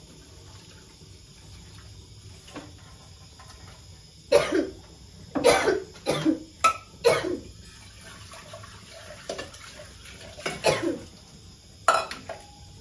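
A person coughing: a run of several coughs about four seconds in, then a few more near the end.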